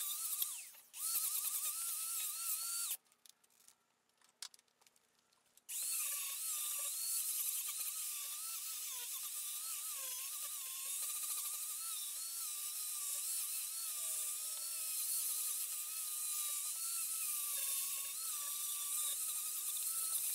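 Angle grinder with a carving disc grinding the outside of a wooden bowl: a high-pitched motor whine that wavers in pitch as the disc bites into the wood and eases off. It cuts out about three seconds in and starts again about three seconds later.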